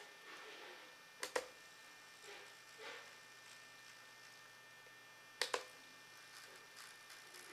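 Two sharp double clicks about four seconds apart, with a few faint rustles in between, from a hand-held 1/48-scale radio-controlled P-51 Mustang model being handled.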